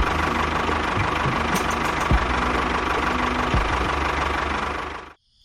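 Small motor of a DIY model construction vehicle running steadily, with a few sharp knocks, then cutting off abruptly near the end.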